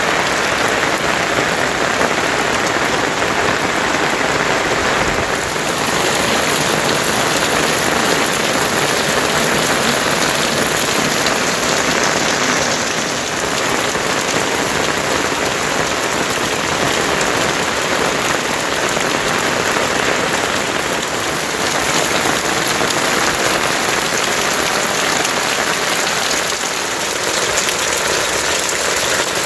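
Heavy monsoon rain falling steadily, an even hiss.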